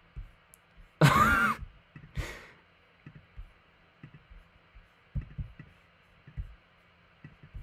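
A loud, exasperated sigh-like vocal noise about a second in, then a softer breath. After that come scattered faint soft clicks and knocks from working the computer's colour picker.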